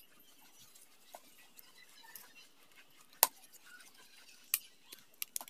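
Faint handling sounds as a snap-off utility knife cuts the rubber strap off an old flip-flop, with a few sharp clicks and taps, the loudest about three seconds in.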